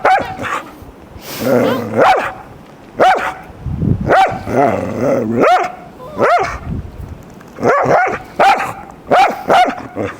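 A dog barking repeatedly, about ten barks in short bunches with brief pauses between.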